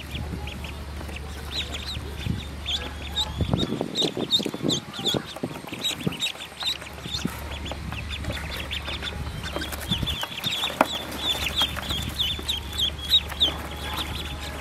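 Newly hatched ducklings peeping: many short, high cheeps in quick succession, with some rustling as they are handled in the straw nest.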